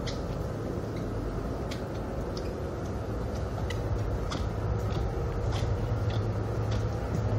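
Steady low hum of the M.V. Bowen Queen's engines, heard inside the ferry's passenger lounge, growing a little stronger about halfway through, with scattered light ticks and clicks over it.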